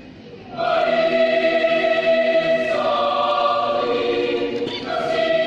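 Mixed choir singing a German Romantic choral piece: after a quiet moment it enters loudly about half a second in with sustained full chords, changes chord near the middle, and swells into a new held chord near the end.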